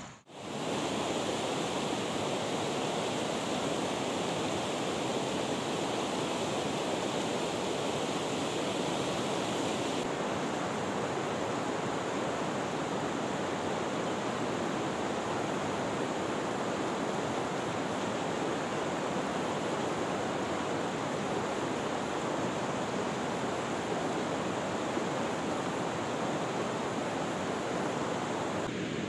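Steady, even rushing noise of fast-flowing water, with a slight change in its hiss about ten seconds in.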